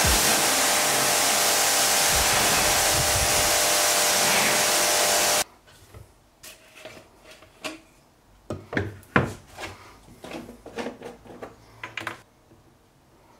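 Pressure washer spraying water in a loud, steady hiss that cuts off abruptly about five seconds in. Then a series of light clicks and knocks as a plastic foam cannon and detailing bottles are handled and set down on a shelf.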